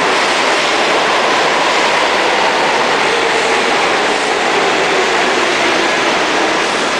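New York City subway train running through an underground station alongside the platform: a loud, steady rumble of steel wheels on rail with faint wheel-squeal tones.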